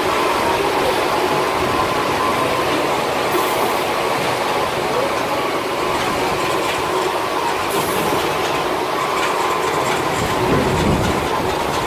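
Wanlong LXM-20 automatic stone line polisher running, its row of spinning polishing heads grinding a dark granite slab as it feeds through: a steady mechanical grinding noise with a constant high hum.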